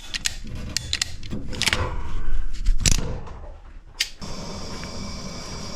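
A PEX crimp tool and fittings being handled and worked: a series of sharp clicks and knocks with a louder stretch of rustling and squeezing in the middle, as a crimp ring is closed on PEX A tubing at a monoflow tee.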